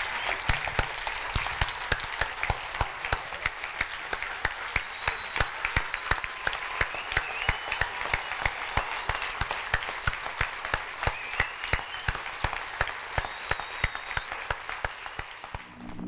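Large audience on their feet applauding: sustained clapping from many hands at once.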